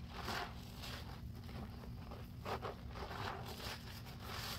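A soaked sponge squeezed over and over in thick dish-soap and baking-soda suds: repeated wet squelches with crackling foam, several squeezes in a few seconds.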